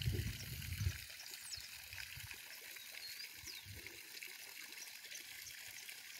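Faint, steady trickle of water at a fish pond, with a low rumble in the first second and a few faint high chirps.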